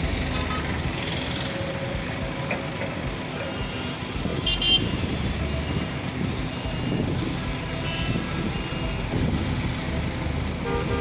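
Steady engine and road traffic noise at a roadworks, with a short horn toot about four and a half seconds in and a fainter one near eight seconds.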